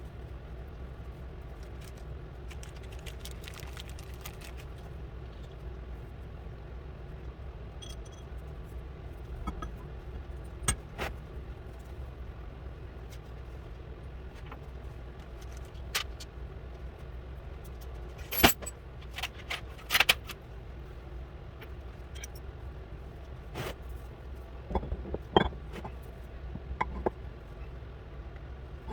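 Scattered metallic clinks and knocks of steel vise parts and tools being handled during reassembly of a Kurt milling vise, over a steady low hum; the sharpest knocks come a little past the middle of the stretch.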